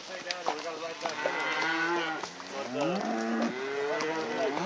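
Cattle mooing and bawling, several animals calling over one another in long drawn-out calls, some sliding up and down in pitch.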